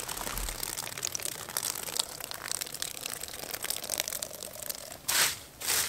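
Water poured in a thin stream onto the cold ashes of a dead campfire, splashing and pattering on the ash. Two brief louder surges come near the end.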